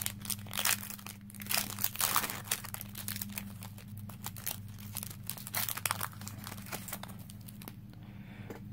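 A foil trading-card booster pack (Yu-Gi-Oh Star Pack) being torn open and crinkled by hand: a dense run of sharp crackles and tears, loudest in the first two or three seconds, that thins out and stops near the end.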